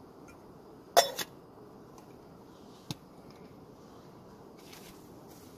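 A sharp metallic clink of camp cookware or a utensil being set down about a second in, followed by a smaller tap near three seconds and faint rustling near the end.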